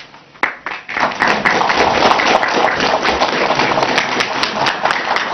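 Audience applauding: a few scattered claps, then full, steady applause from about a second in.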